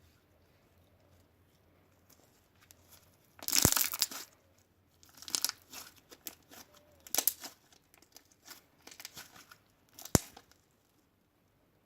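Slime being squeezed and stretched by hand, giving irregular bursts of crackling and popping: the loudest about three and a half seconds in, and a single sharp pop near the end.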